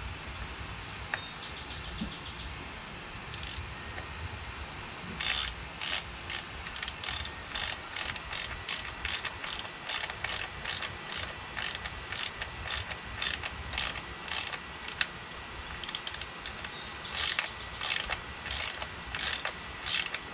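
Socket ratchet wrench clicking in a steady run of strokes, about two clicks a second, as a 7/16 nut is run down onto a broken bolt's protruding stub. The clicking starts a few seconds in and pauses briefly near the end before resuming.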